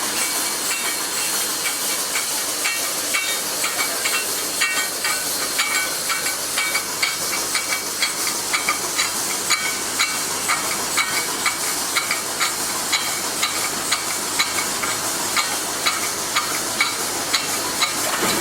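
Wire mesh panel welding machine running on test, a steady high-pitched hiss under regular metallic clacks about one to two a second, the clacks growing more distinct after about four seconds.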